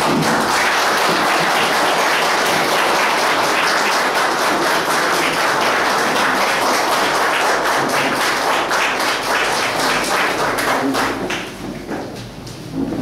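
Audience applauding: a burst of many hands clapping that starts all at once and runs steadily, then dies away about eleven seconds in.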